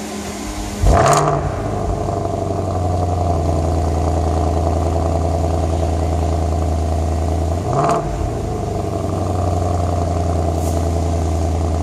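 2013 Porsche Panamera GTS's 4.8-litre V8 cold-starting: it fires about a second in with a sharp flare of revs, then holds a steady high cold idle. About eight seconds in, the revs briefly dip and flare again before the steady idle resumes.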